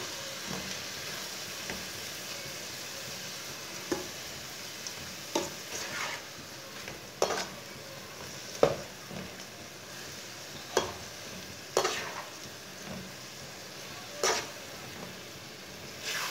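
A slotted metal spoon stirring spinach and red lentils through frying masala in a metal karahi. There is a steady sizzle, and the spoon scrapes or knocks against the pan every one to two seconds.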